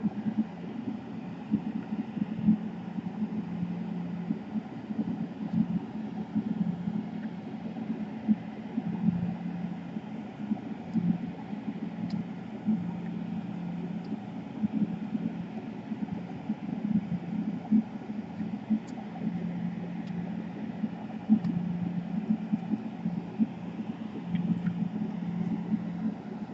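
Steady low hum with an uneven rumble, with a few faint clicks over it.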